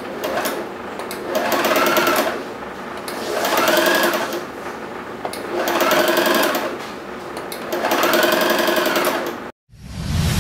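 Brother JA001 electric sewing machine running in four surges, its motor and needle speeding up and slowing down each time with a rising then falling whine. It cuts off suddenly near the end, replaced by a short electronic intro sound.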